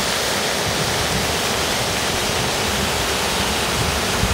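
Fountain jets splashing into the basin: a steady rushing of water. A low rumble comes up near the end as a tram approaches.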